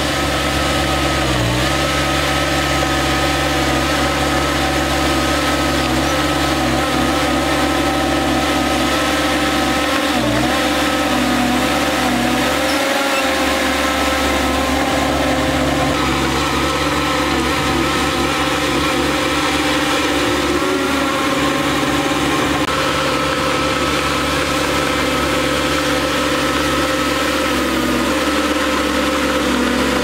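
Diesel engine of a Shantui crawler bulldozer running steadily while the dozer pushes dirt, its pitch dipping briefly a few times as the load changes.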